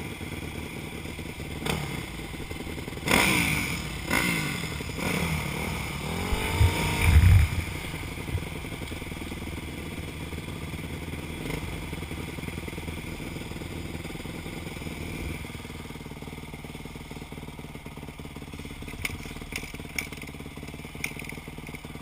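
Yamaha YZ250F dirt bike's single-cylinder four-stroke engine running: revved up and down several times in the first third, then settling to a steady idle.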